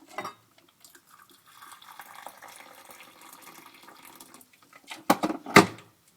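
Boiling water poured from a cup into a saucepan, running steadily for about three seconds. Two sharp clanks of kitchenware follow near the end.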